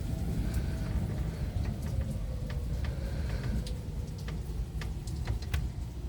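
Heavy rain with single drops tapping sharply on a hard surface, over a low rumble of thunder that slowly dies away.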